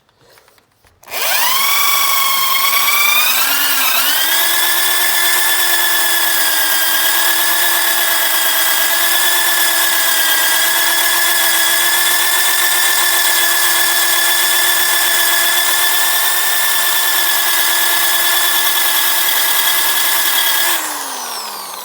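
Electric polisher run at full speed on aluminium: the motor spins up about a second in, whines steadily at high speed with one brief dip in pitch, and winds down near the end. It is being pushed hard against the metal to polish it to a mirror finish.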